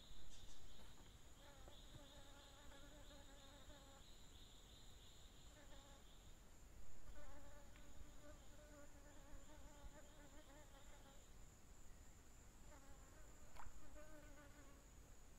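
A flying insect buzzing faintly in passes, its wavering buzz coming and going several times. Behind it runs a steady high-pitched whine and a pulsing insect trill that stops near the end.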